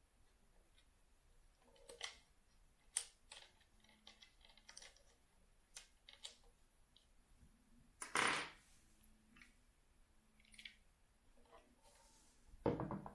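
Scattered light clicks and taps with two louder, brief scraping rustles about eight seconds in and near the end: small plastic parts and packaging being handled by hand.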